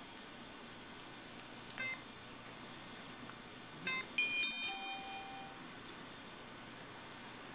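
IM-6100 mobile phone playing its built-in sound effects through its speaker: a short electronic beep about two seconds in, another near four seconds, then a brief cluster of several overlapping chime-like tones, the loudest of the three.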